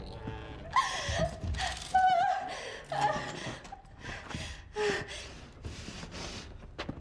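High, wavering wordless vocal cries and gasps, a cluster of short ones in the first three seconds, then fainter ones.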